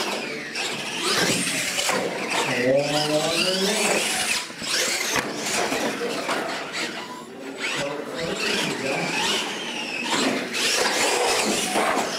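Electric radio-controlled monster trucks being driven hard: motor whine rising and falling with the throttle, mixed with tyre squeal.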